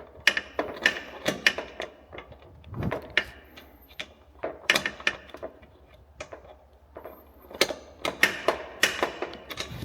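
Quarter-inch ratchet wrench clicking in short runs as bolts in a Corvette C8's engine bay are tightened, with pauses between strokes.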